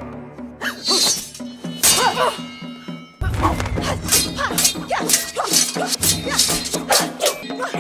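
Martial-arts film fight soundtrack: music over fast blows and swishes of a hand-to-hand duel. About three seconds in it turns into a dense, rapid run of hits.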